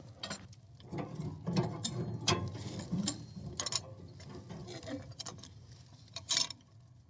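Irregular metal clicks and clanks as the snowblower attachment's hitch pins and linkage are handled and fitted, with one sharp, louder click about six seconds in, over a low steady hum.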